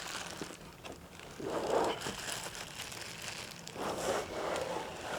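Box packaging rustling and crinkling as it is handled, in two short bouts with a few small clicks and knocks in between.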